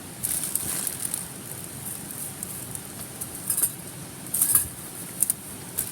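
Wood campfire crackling with irregular sharp pops, the loudest cluster about four and a half seconds in, over a steady hiss of running water.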